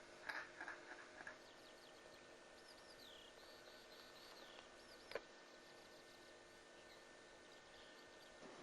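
Near silence with faint, high chirps from small birds, and a single sharp click about five seconds in.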